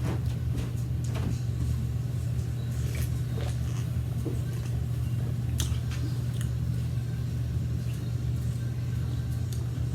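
A steady low hum throughout, with scattered short clicks and smacks of eating: chewing and utensils on a plate.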